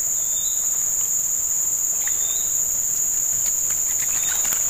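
A steady, high-pitched drone of insects. Three short high chirps come about two seconds apart, and a few faint clicks follow near the end.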